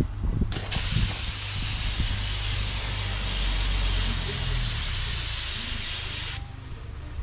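Paint spray gun spraying: a short burst, then one steady hiss of nearly six seconds that cuts off suddenly, over a low rumble.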